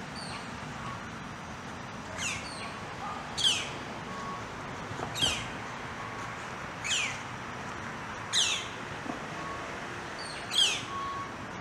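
Northern flicker nestlings calling: six loud, sharply descending calls, one every one and a half to two seconds, starting about two seconds in.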